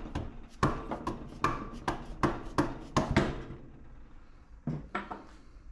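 Soft-faced mallet striking the crankcase of a 418 cc air-cooled diesel (Yanmar L100 clone), tapping the crankshaft out: a quick run of sharp knocks, about three a second, for roughly three seconds until the crankshaft comes free. Two lighter knocks follow near the end.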